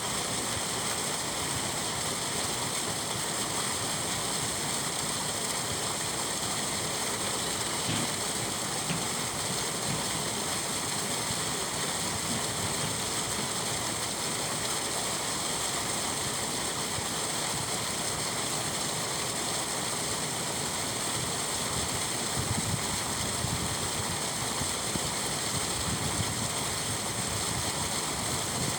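Water rushing and churning steadily as a boat lock chamber is drained.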